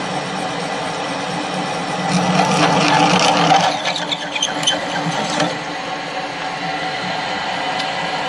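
Drill press running steadily while a twist bit on an extension rod drills into steel. From about two seconds in, the cutting gets louder, with clicks, and it eases back off after about five and a half seconds.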